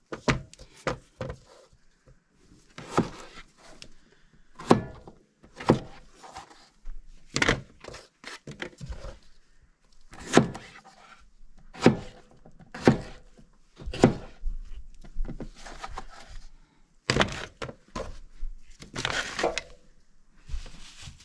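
Large chef's knife cutting through golden potatoes and knocking down onto a plastic cutting board: irregular sharp knocks, roughly one a second.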